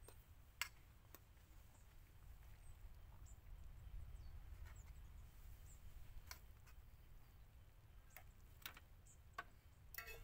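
Near silence outdoors: a faint low rumble, a few faint clicks of a fork and cooking pot as noodles are served into a bowl, and a few faint high bird chirps.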